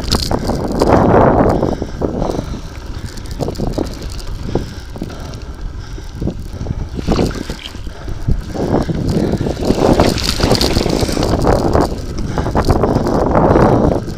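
Wind buffeting the microphone of a camera on the move, with the rough crackle and rattle of travel over a wet gravel track; the rush swells and dips and is loudest near the start and again near the end.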